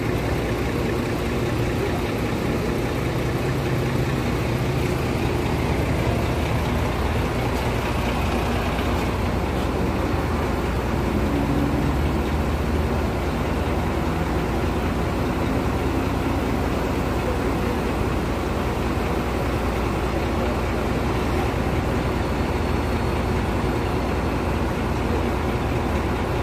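Diesel engine of a Tadano Faun ATF 160G-5 all-terrain crane running steadily while the crane hoists counterweight slabs onto its superstructure.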